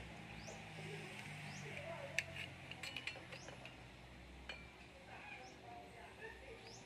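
A few faint metallic clicks and clinks, the sharpest about two seconds in, from handling the aluminium base and radial rods of a Diamond CP22E antenna during assembly. Short high chirps of birds come in now and then.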